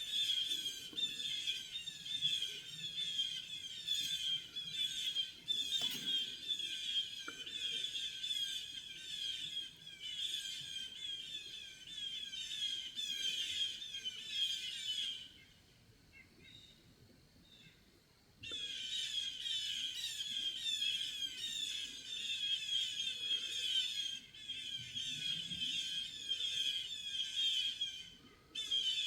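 Blue jays giving loud, harsh alarm and mobbing calls in a continuous chorus, warning of a Cooper's hawk that has caught one of them. The calls break off suddenly about halfway through and resume about three seconds later.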